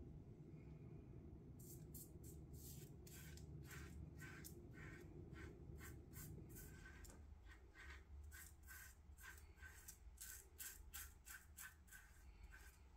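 Faint, quick scraping strokes of a Parker semi-slant safety razor cutting stubble through shaving lather, about two strokes a second, starting a second or two in.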